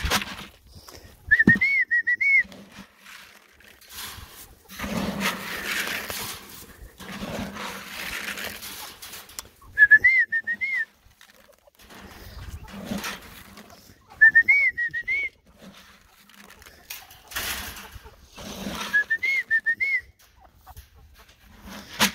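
A bird's whistled call, repeated four times, every four to five seconds. Each call is about a second long, a wavy phrase of several quick rising notes at the same pitch each time. Bursts of rustling, shuffling noise come between the calls.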